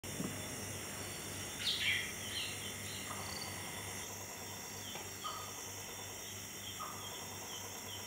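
Night ambience: a steady high-pitched chorus of crickets and other insects, with short chirping calls repeating about once a second, the loudest about two seconds in.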